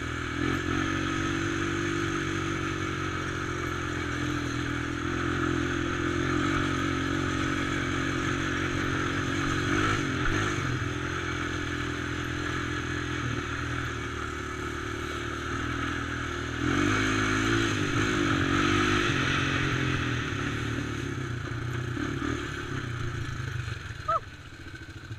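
Sport quad's engine running as it rides along a dirt and gravel trail, its note rising and falling with the throttle. It gets louder about two-thirds through, then drops back near the end as the quad slows.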